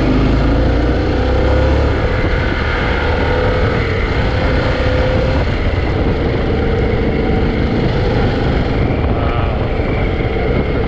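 Motorcycle engine running at steady cruising speed, mixed with heavy wind rumble on the helmet or bike-mounted microphone.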